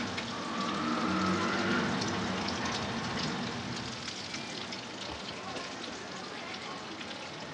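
Egg-coated potato samosa rolls sizzling in hot oil in a frying pan: a steady hiss with many small crackles and pops.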